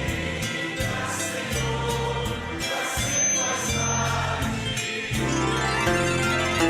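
Christian worship music: a harp melody over sustained choir-like voices and a bass line that moves about once a second.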